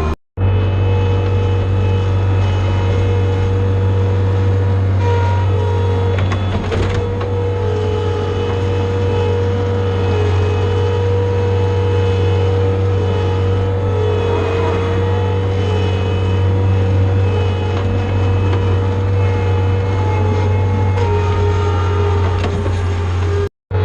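John Deere skid steer's diesel engine running steadily at working speed, with a steady whine over the low engine note. The sound drops out for a moment just after the start and again near the end.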